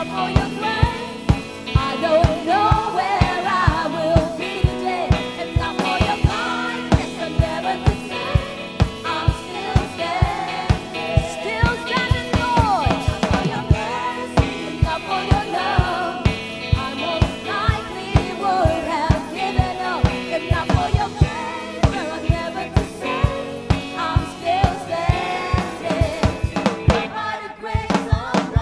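Live praise band playing a worship song: several vocalists singing together over electric guitar, bass and a drum kit keeping a steady beat.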